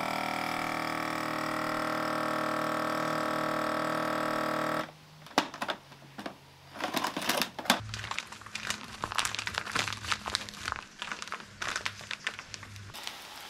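A CASO vacuum sealer's pump runs with a steady hum as it draws the air out of the bag around the beef fillet, stopping suddenly after about five seconds. Then the plastic vacuum bag crinkles and crackles as it is handled.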